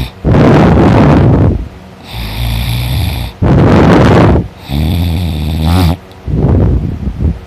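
A person snoring loudly while sleeping on their back. Each breath brings a low, buzzing rattle followed by a loud rushing blast, repeating about every two and a half seconds.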